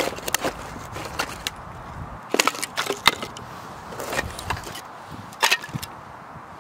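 Pieces of split firewood knocking against each other as they are set down on a pile: a string of sharp wooden clacks, loudest in a cluster about two and a half seconds in and again about five and a half seconds in.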